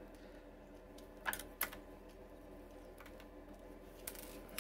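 Light clicks and taps of the diesel heater controller's opened plastic case and circuit board being handled by fingers: a couple of sharp clicks about a second and a half in and another near the end, over a faint steady hum.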